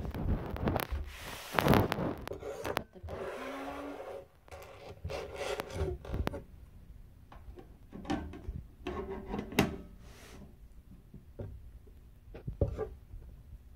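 Handling noises of an EPAX X1 resin 3D printer's housing being set upright on a foam pad: rubbing, scraping and knocks, loudest in the first two seconds. After that come scattered light clicks and taps as small parts are fitted by hand.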